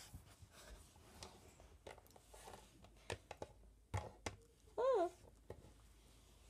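Hard plastic Littlest Pet Shop figures knocked and tapped against a wooden desk: a few light, scattered clicks and knocks. About five seconds in, a short vocal sound that rises and then falls in pitch, the loudest thing here.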